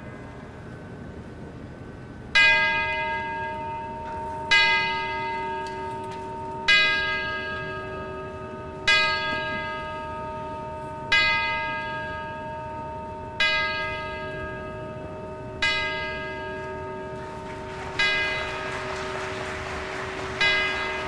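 A large bell tolling slowly, struck nine times at even intervals of a little over two seconds after a quiet first two seconds, each stroke ringing on into the next.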